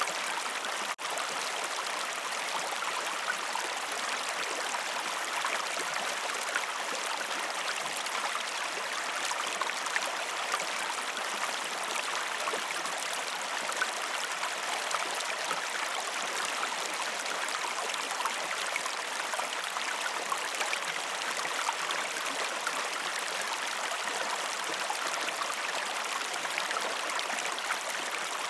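Waterfall: a steady, even rush of falling water with fine splashing, briefly cut by a short dropout about a second in.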